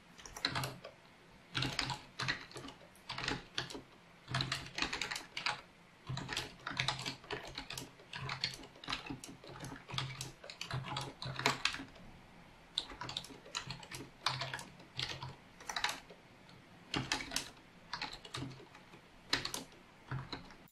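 Fast touch-typing on a Logitech MK850 wireless keyboard: loud key clicks in quick runs of several strokes, one run per word, with short gaps between them. The clicking stops abruptly at the end.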